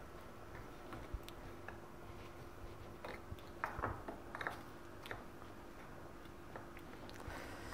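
Faint soft squishes and light clicks of cauliflower florets being mixed through a thick chili-and-ginger spice paste in a bowl, over a faint steady hum.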